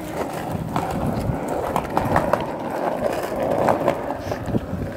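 Skateboard rolling on a concrete sidewalk: a steady rumble from the wheels, with several sharp clicks.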